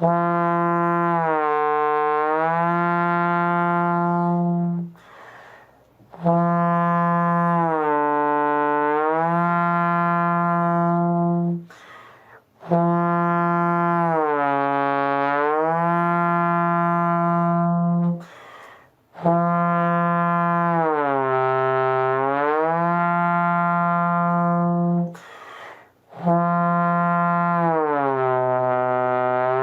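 Trombone playing sustained long tones in five breaths. Each phrase starts on F, steps down by semitones through the slide positions and comes back up to F, reaching a little lower each time. There are short pauses for breath between phrases.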